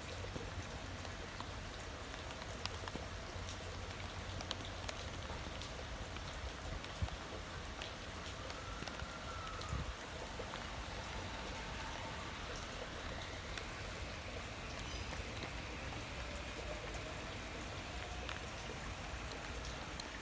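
Steady rain with scattered drop ticks. From about ten seconds in comes the faint, rising whine of a 5500-series electric train's traction motors as it pulls away from the platform.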